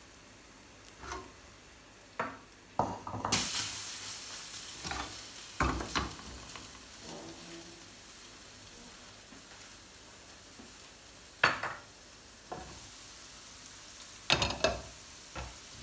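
Food sizzling in a hot frying pan. The sizzle starts suddenly about three seconds in, then slowly dies down, with scattered knocks and clinks of a utensil against the pans.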